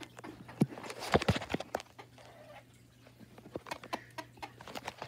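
Scattered taps and knocks from a chicken being handled, with a louder flurry of them about a second in.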